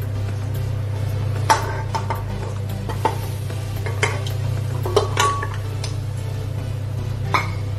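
Raw mutton trotters dropped by hand from a ceramic plate into an aluminium pressure cooker, giving about seven separate clinks and knocks of bone and plate against the pot.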